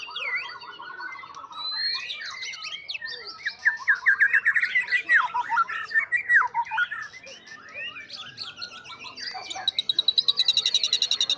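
White-rumped shama (murai batu) singing its full, varied song: loud whistles, slurred notes and quick trills. Near the end it breaks into a fast run of repeated high notes.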